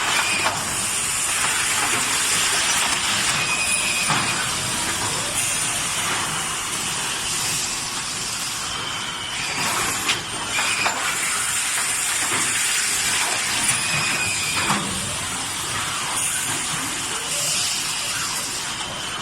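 Automatic carton side-labeling machine running: a steady hiss of machine noise under a faint high whistle, with short high-pitched tones recurring every few seconds and a few sharp clicks.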